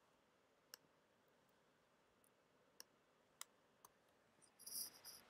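Near-silent room tone with a few faint, scattered clicks from a computer mouse and keyboard as a spreadsheet formula is entered. A brief hiss comes near the end.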